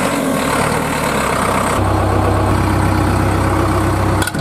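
Heavy engine running steadily, in the manner of a tractor engine, with its sound changing abruptly about two seconds in.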